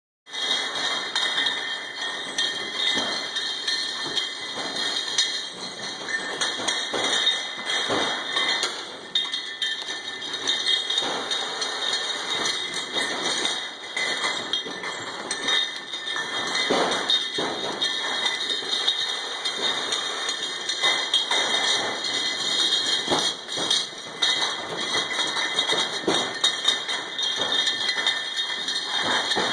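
Automatic bottle labeling machine running on a production line: a steady high-pitched whine, with frequent irregular knocks and clinks of bottles moving along the conveyor.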